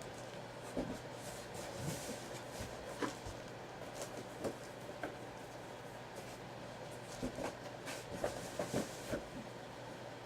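Faint handling noises: scattered light taps and clicks, a few bunched together near the end, over a steady low hum.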